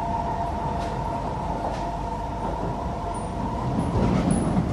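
Interior running noise of a Kawasaki Heavy Industries & CSR Qingdao Sifang C151B metro train at speed: a steady rumble with a held two-note whine that fades out about three to four seconds in, as the low rumble grows louder.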